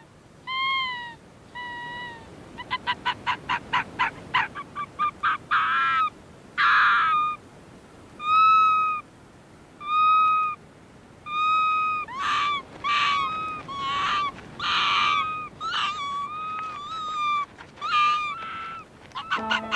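A pair of arctic foxes calling back and forth in a duet: a quick run of short yapping barks, then longer, evenly pitched calls of about half a second, some with a falling end. These are the contact and territorial calls of a mated pair.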